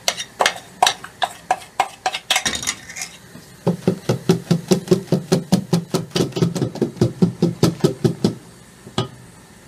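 Wire whisk clacking against a stainless steel bowl as it stirs hot caramelized honey into an egg-and-sugar batter. The strokes are slower at first, then settle into a fast, even beat of about four to five a second, and stop about a second before the end.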